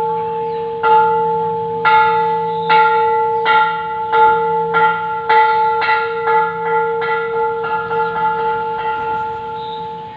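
Thai temple bell struck by a monk, about fourteen ringing strokes that come faster and faster, each one ringing on into the next.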